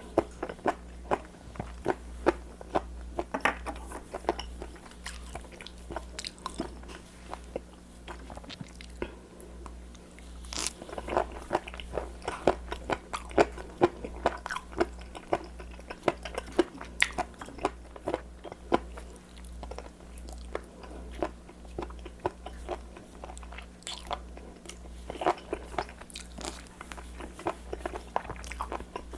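A person chewing raw seafood close to the microphone: a steady run of irregular wet crunches and clicks as the firm, crunchy flesh is bitten and chewed.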